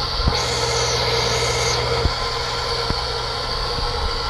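Goulds water pump running steadily with a hum, with a hiss of water flowing through the plumbing, and a few light clicks.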